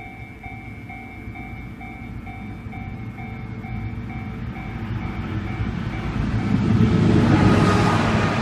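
Railway level-crossing warning bell ringing in a rapid, even pulse, about two and a half strokes a second. Over the last few seconds the rumble of an approaching train grows steadily louder and covers the bell.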